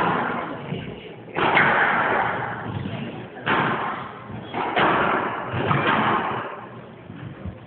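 Squash ball struck hard during a rally: about five sharp cracks, one to two seconds apart, each ringing out in a long echo from the court.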